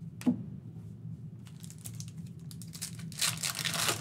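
Foil trading-card pack wrapper being torn open and crinkled, the crinkling building up and loudest in the last second. A single sharp click comes shortly after the start.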